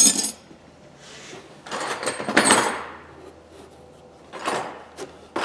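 Metal hand wrenches being handled and shifted in a box of tools. A sharp clink at the start, a longer scraping rattle around two seconds in, a shorter one around four and a half seconds, and another clink near the end.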